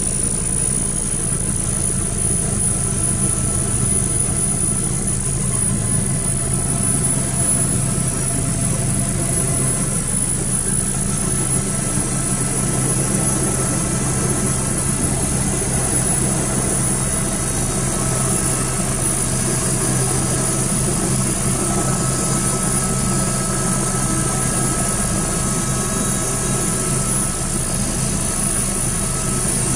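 Westland Wasp helicopter's Rolls-Royce Nimbus turboshaft and rotor running, heard from inside the cabin: a steady low drone with a constant high turbine whine.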